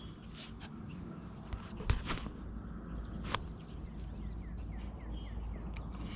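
Small birds chirping in short quick notes over a low steady hum, with a few sharp clicks in between.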